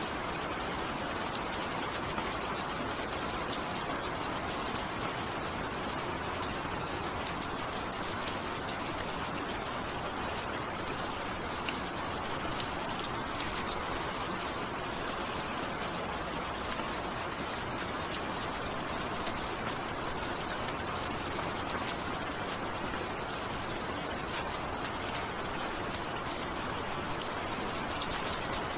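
Steady rain falling: an even hiss with scattered sharp ticks of individual drops.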